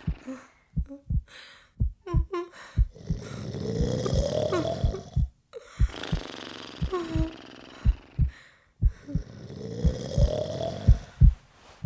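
A person snoring: two long swelling snores, each rising in pitch, over a steady rhythm of short low thumps like a heartbeat.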